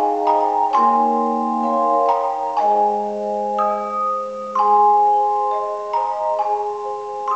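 Tone chimes playing a slow piece: several chimes struck together in chords, their clear notes ringing on and overlapping as new ones sound every second or so.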